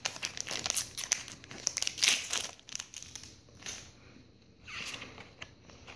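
Foil Pokémon booster-pack wrapper crinkling in the hands as the opened pack is handled, dense for the first two and a half seconds and then thinning to a few scattered rustles.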